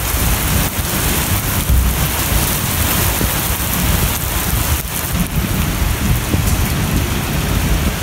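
Heavy rain pouring down onto a wet concrete car park and parked cars: a steady, even hiss with a low rumble underneath.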